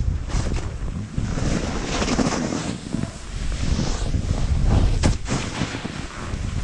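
Wind buffeting an action camera's microphone at riding speed, mixed with the hiss of snowboards sliding and carving through powder snow, swelling and easing as the riders turn.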